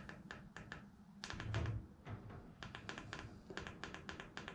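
Eurotherm nanodac controller's front-panel push buttons clicking under a fingertip, pressed in quick runs of several clicks to step through letters on its on-screen keyboard. A brief low thud comes about a second and a half in.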